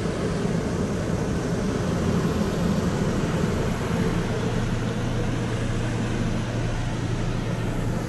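Steady mechanical drone of a motorhome's Kubota 7000-watt generator and roof air conditioners running, with a constant low hum.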